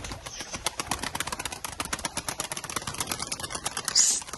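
Domestic pigeons taking off from a loft, their wings flapping and clapping in a fast rattle of clicks, with a short hiss about four seconds in.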